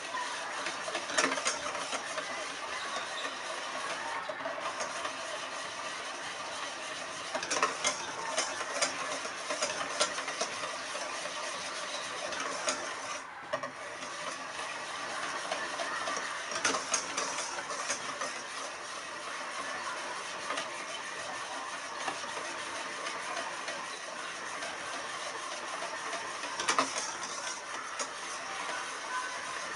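Wire balloon whisk beating a thin matcha custard mixture in a stainless steel bowl: a steady rapid scraping and sloshing of the wires against the metal, with an occasional louder clink.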